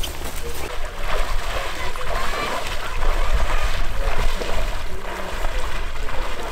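Water splashing and sloshing as a man wades through shallow wetland water, over a steady low rumble.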